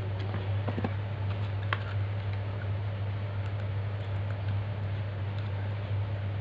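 Small scattered clicks and scrapes of a screwdriver tip prying an ATmega DIP chip out of its IC socket on a perfboard, over a steady low hum.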